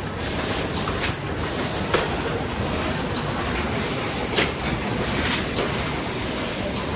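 Cornetto cone filling line running: a steady mechanical din with sharp metallic clacks every second or two.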